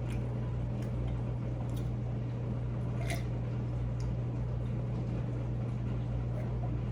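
A steady low hum, with a few faint soft clicks and squishy mouth sounds of quiet chewing.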